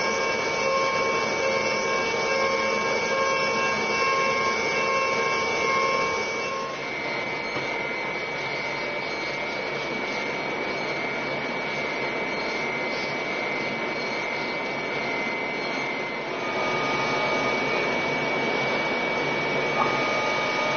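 CNC machine milling a metal part: a steady spindle and cutter whine with several held, pulsing tones. About seven seconds in it gives way to an even hiss of flood coolant spraying over the cutter, with one high whine held above it.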